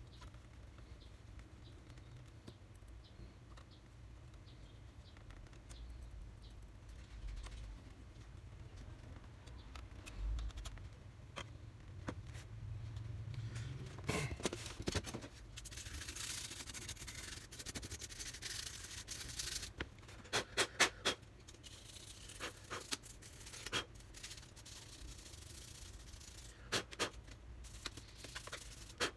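Hands working on a laptop's internals: rubbing and scraping, with a stretch of hissing scrubbing in the middle and scattered small clicks of plastic and metal parts.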